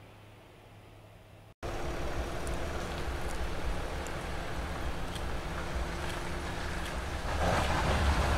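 INEOS Grenadier 4x4 driving slowly along a gravel track toward the microphone: low engine rumble with tyres crunching and ticking over stones, growing louder near the end as it comes close. It starts abruptly about a second and a half in, after a faint low hum.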